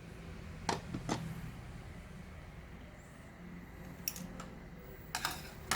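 Small sharp clicks and taps of a screwdriver and loose parts being handled while a laptop is taken apart, a few scattered single clicks and a quick cluster near the end, over a low steady background hum.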